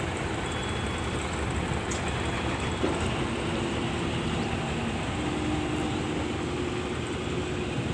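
Backhoe engine running steadily, a constant mechanical drone.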